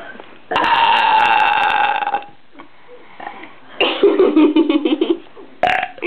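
A girl's deliberate burp, loud and held for well over a second, then a second, lower burp with a rattling flutter about four seconds in.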